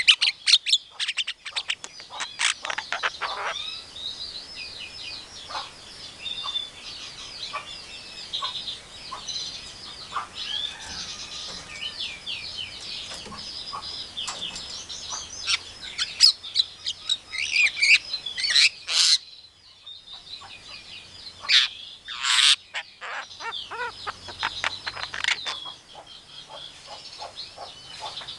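Javan myna (jalak kebo) giving a long, fast run of varied chirps, whistles and chatter, the mixed song of a bird that mimics other sounds. A few louder, shrill calls stand out in the second half.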